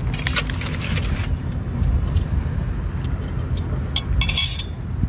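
Hands rummaging through an insulated picnic bag: plastic rustling and light clinks of containers and bottles, loudest about four seconds in, over a steady low rumble.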